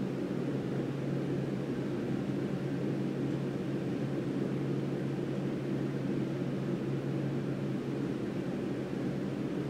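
A steady low drone with a constant hum underneath, unchanging in level throughout.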